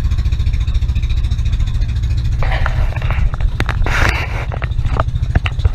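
Boat engine running steadily with a low, fast-pulsing drone, joined by bursts of hiss from about halfway through.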